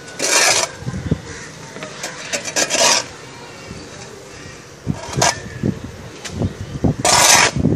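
A small hand trowel scraping and digging through soil in repeated strokes, mixing in farmyard manure and microbial inoculants. There are a handful of short scrapes, with the longest one about seven seconds in.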